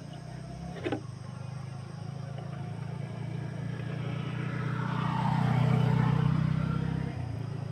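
An engine running steadily, growing louder toward the middle and then dropping off sharply about seven seconds in, with one sharp click about a second in.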